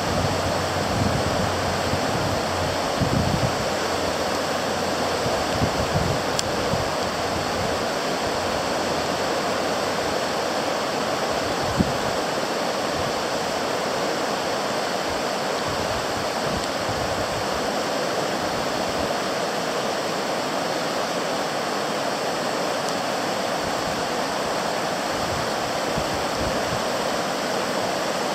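South Fork Eel River in flood: fast, high water rushing with a steady heavy roar.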